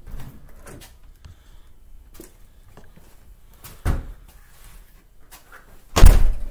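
A door being opened and shut: a sharp knock about four seconds in and a much louder bang near the end.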